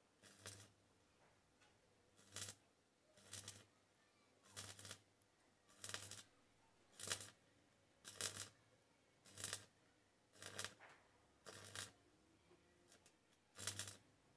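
Stick arc welding in short bursts: about eleven brief crackling bursts of the arc, roughly one a second, each with a low hum under it.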